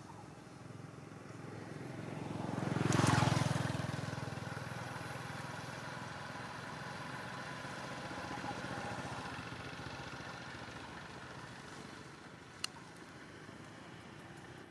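A motor vehicle passing along the road, building to its loudest about three seconds in and then slowly fading away. A single sharp click comes near the end.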